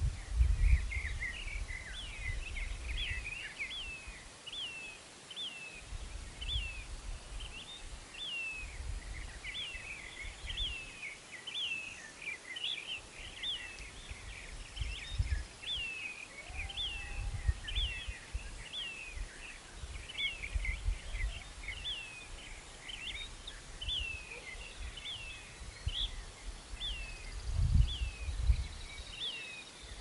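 Birds singing at dawn: a steady run of short, hooked, chirping notes, about two a second, with a gusty low rumble beneath that swells at the start and again near the end.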